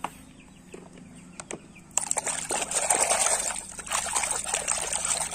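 A hand splashing and swishing a plastic toy animal around in a tub of soapy water. It starts about two seconds in, after a few faint knocks, and runs on with a short lull near four seconds.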